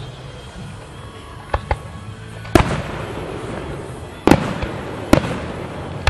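Aerial firework shells bursting overhead: two lighter pops about one and a half seconds in, then three loud, sharp booms about a second and a half apart, each trailing off in a brief echo.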